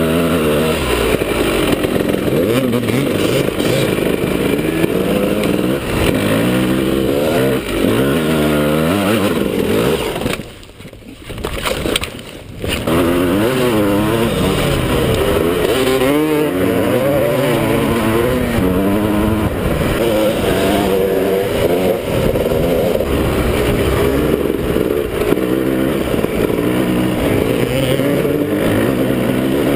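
Suzuki dirt bike engine revving up and down as it is ridden along a trail, its pitch rising and falling with the throttle and gear changes. About ten seconds in, the engine drops off briefly and then revs up again.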